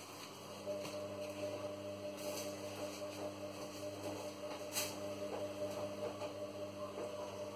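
Induction hob humming steadily as it heats a frying pan of oil, with a short sharp click nearly five seconds in.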